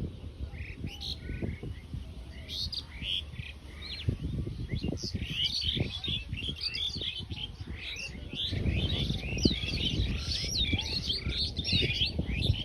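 Many small birds chirping, a flock of short high calls that starts sparse and grows dense about a third of the way in, over a low rumble that gets louder near the end.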